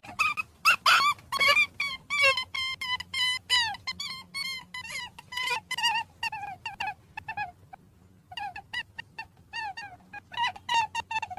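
Rabbit squeaking: a rapid string of short, high-pitched squeaks, several a second, that pauses about seven and a half seconds in and then starts again.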